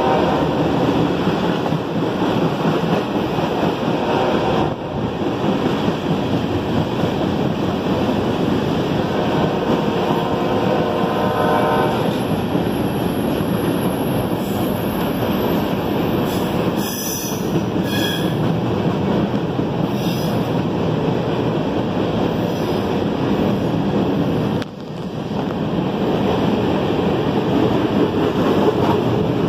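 A CSX mixed freight train's cars rolling past close below: a steady rumble of steel wheels on rail, with wheels squealing at the start, again around ten seconds in and in high short squeals a little past the middle. The noise drops briefly twice.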